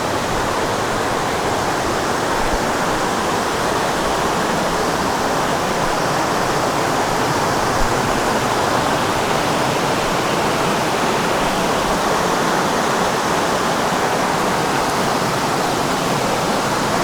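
Waterfall rushing: a loud, steady, even noise of falling water that does not change.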